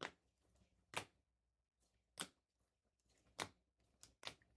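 Trading cards being handled and flipped through one by one: short, faint card swishes about once a second, six in all, the last two close together.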